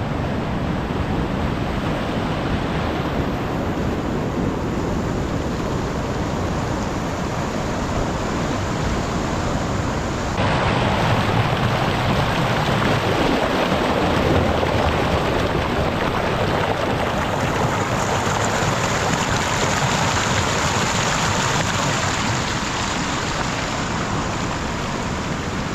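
Water rushing and cascading off a coastal rock shelf, with sea surf behind it, in a steady loud wash. It gets abruptly louder about ten seconds in.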